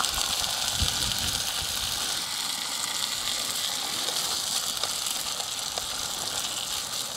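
Chicken fillets sizzling in hot oil in a frying pan over a campfire: a steady hiss that holds level throughout.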